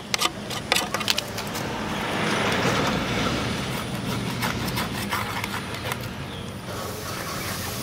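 A few scrapes of a tool on the greasy metal blades of an exhaust fan in the first second. Then a steady rushing noise swells and fades over a few seconds, over a low hum.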